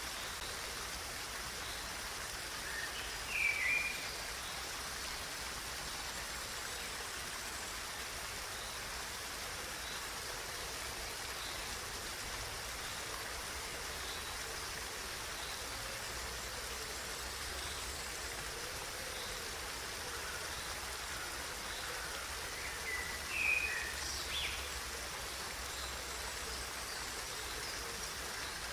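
Steady rush of running water, with short bird chirps about three seconds in and again about twenty-three seconds in.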